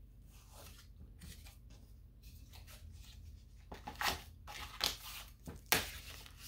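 Sublimation print paper being handled and wrapped around a dog bowl: soft rustling at first, then louder crinkles and crackles in the second half, with one sharp snap of the paper near the end.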